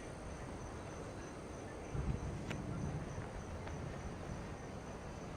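Night insects, crickets, chirping steadily in a continuous chorus. A brief soft low rumble comes about two seconds in.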